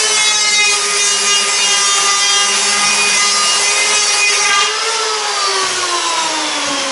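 Electric hand power planer running, its cutter head whining steadily as it shaves the corners off a square wooden mast spar to make it eight-sided. Near the end the pitch falls slowly as the planer comes off the wood and winds down.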